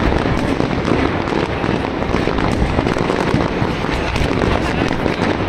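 Fireworks display in full barrage: many aerial shells bursting and crackling at once, the reports overlapping into a continuous rumble with no pause.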